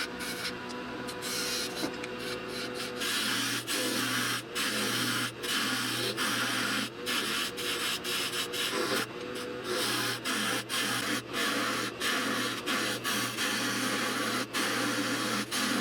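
Small 8x12 wood lathe running with a steady motor hum while a turning tool cuts a spinning piece of poplar, a rough scraping cut that breaks off for a moment many times as the tool is lifted and set back on the wood.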